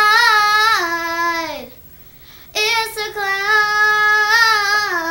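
A young girl singing unaccompanied, holding long notes with vibrato. The first phrase glides down in pitch and ends a little under two seconds in; after a short breath a second long held phrase begins.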